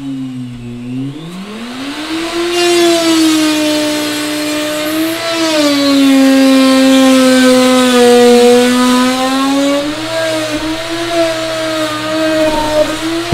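Handheld electric router spinning up about a second in and cutting into a plywood ceiling panel: a loud, high motor whine that sags in pitch as the bit bites and recovers, cutting off near the end.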